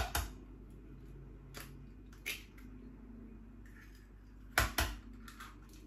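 Eggs being cracked into a blender beaker of ground oats. A few light taps and clicks come first, then two sharp cracks close together about four and a half seconds in, as a shell is knocked and broken open.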